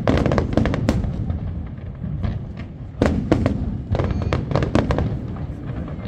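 Fireworks display: aerial shells bursting in rapid volleys of sharp bangs, a dense cluster at the start, another about three seconds in and more around four to five seconds, over a continuous low rumble.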